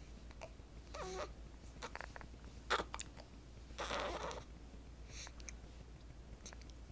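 Newborn baby hiccuping: a few short, sharp hics, the loudest near the middle, with small squeaky and breathy noises between them.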